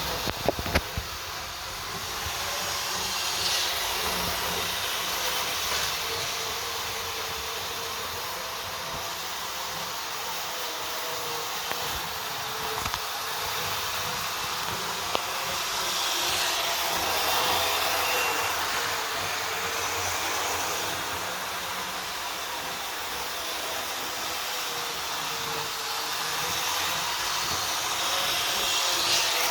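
Tri-ang Blue Pullman model train running on the track: a steady whir of its motor and wheels on the rails, swelling louder three times as it comes close, with a few sharp clicks in the first second.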